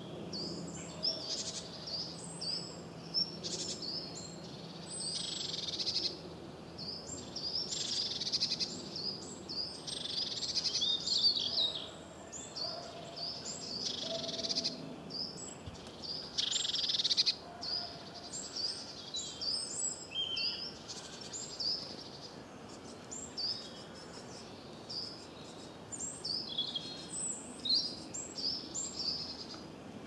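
Several songbirds singing and calling: short high chirps repeated about twice a second throughout, with louder bursts of fuller song a few times.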